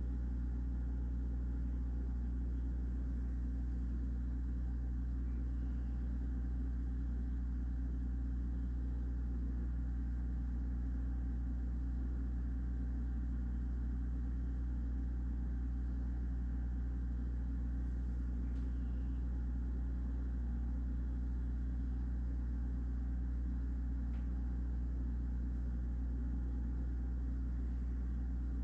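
A steady low mechanical hum that never changes in pitch or level.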